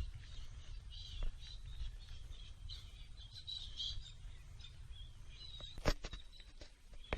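A flock of birds in a tree chirping and calling faintly, short repeated chirps over a steady low rumble, with one sharp click about six seconds in.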